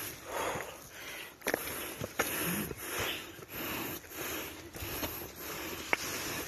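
Heavy, rhythmic breathing of a hiker climbing a steep trail, close to the microphone, with footsteps and leaves brushing past and a few sharp snaps.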